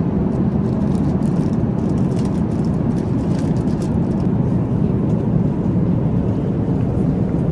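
Steady engine drone, unchanging throughout.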